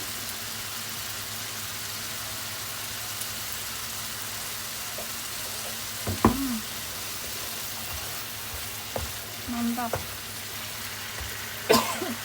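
Red chili and tomato balado paste sizzling steadily in a frying pan. A sharp knock about halfway through and another near the end.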